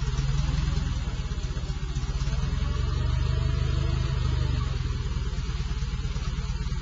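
Forklift engine running steadily, a low, even throb.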